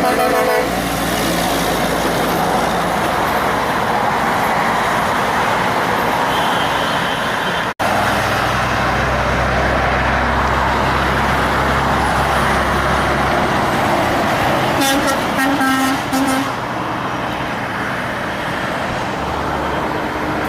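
Heavy trucks passing with loud diesel engine noise, rising to a deep engine sound midway. A truck horn sounds briefly at the start, and a horn blast of about a second and a half comes near the end.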